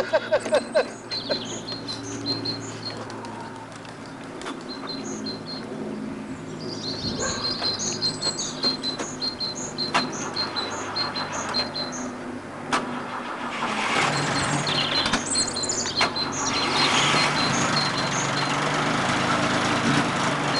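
A 2.5-litre car engine that has stood unused for about three weeks being started and run, getting louder about two-thirds of the way through.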